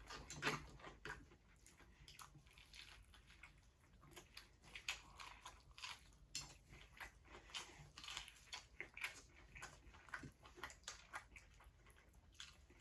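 Faint, close chewing and biting of gravy-dipped fried chicken: irregular soft crunches, smacks and mouth clicks, several a second.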